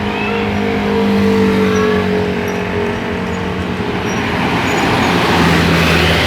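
A large bus passing close by with a held, steady tone that slowly sinks in pitch as it goes by. Engine and road noise then swell near the end.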